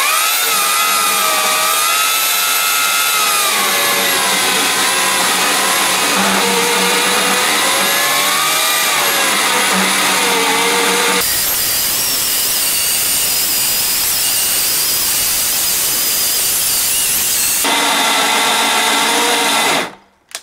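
Oregon CS1500 electric chainsaw ripping a full-depth cut through a cedar log on an overhead mill. The motor's whine wavers in pitch under load, and for several seconds in the middle it gives way to a rougher, noisier cutting sound. Near the end the motor cuts out quickly and spins down: the overloaded saw has tripped the circuit breaker.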